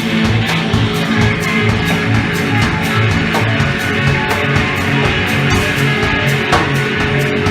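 Live rock band playing, with guitar prominent over a steady, even beat.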